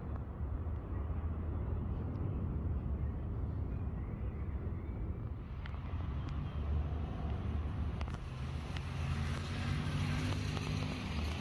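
Motor vehicle noise: a steady low rumble, with a low engine hum coming in near the end.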